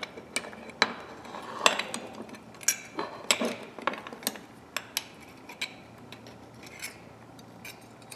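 Steel parts of a pair of locking pliers clinking and clicking irregularly as the release spring is worked into place by hand, with sharp light metal taps that come thick in the first few seconds and thin out later.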